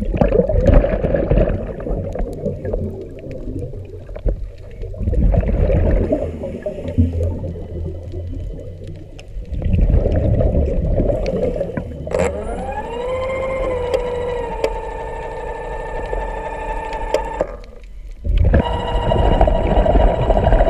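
A diver's exhaled bubbles rumble underwater in bursts lasting a few seconds. About twelve seconds in, a DiveX Piranha underwater scooter's electric motor starts with a rising whine and settles into a steady high hum. It cuts out for about a second near the end, then starts again.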